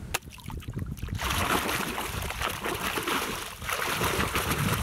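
Shallow muddy water splashing as a hand swishes a plastic toy shotgun back and forth through it to wash off the mud. After a few light clicks, the splashing starts about a second in and keeps going, with a brief let-up about three and a half seconds in.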